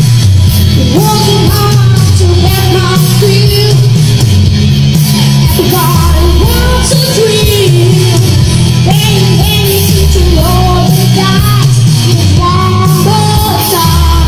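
A young boy singing a rock song into a microphone over a loud rock backing track played through PA speakers. His sung melody rises and falls in long held notes over a steady heavy bass.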